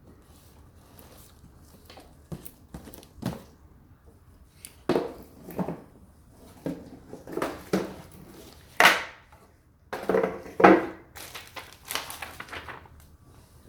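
Packaging being handled and opened, crinkling and rustling in irregular bursts, loudest through the middle.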